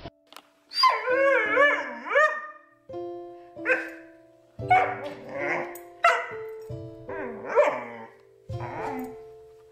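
A Doberman pinscher vocalizing as it plays with a toy: a wavering, howl-like cry about a second in, then a string of short barks, over background music with held notes.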